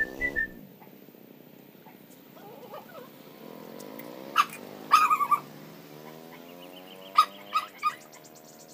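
Puppies giving short, high yips and whimpers. There is one about four seconds in, a quick run of several a second later, and three more near the end.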